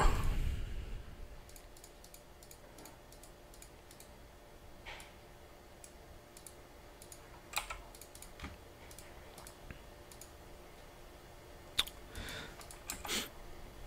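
Irregular, scattered clicks of a computer mouse and keyboard keys, a few isolated ones and a small cluster near the end.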